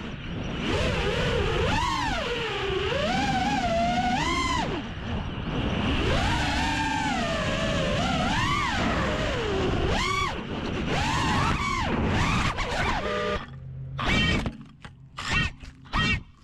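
5-inch FPV quadcopter's brushless motors whining, the pitch swooping up and down as the throttle changes, over a low rush of wind. Near the end the throttle is chopped, leaving a few short bursts of whine with quiet gaps between.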